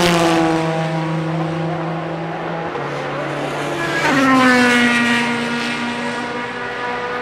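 Endurance race cars, GT cars and prototypes, driving by one after another at racing speed. The two loudest pass at the start and about four seconds in, each engine note dropping in pitch as the car goes by.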